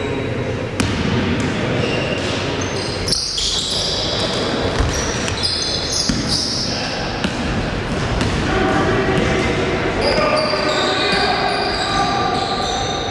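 Basketball game sounds echoing in a large gym: the ball bouncing on the court with sharp knocks, over a steady background of voices from players and spectators.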